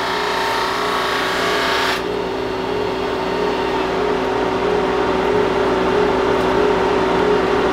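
Drum sander running steadily, its abrasive drum sanding a glued-up red cedar panel to flatten a misaligned glue seam. About two seconds in the grainy sanding sound stops abruptly as the board clears the drum, and the machine runs on empty with a steady hum.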